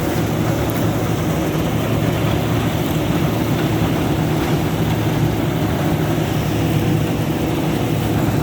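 Combine harvester running steadily while cutting wheat: a constant low engine drone under a dense rushing noise, with no change in pitch.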